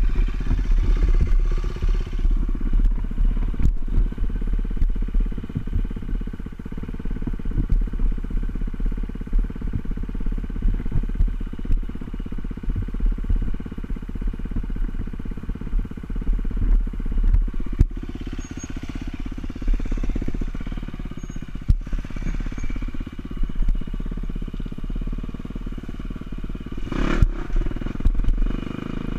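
Dirt bike engine running with rising and falling revs as it is ridden over a dirt trail, under a heavy low wind rumble on the microphone, with a few sharp knocks from the bike over the bumps.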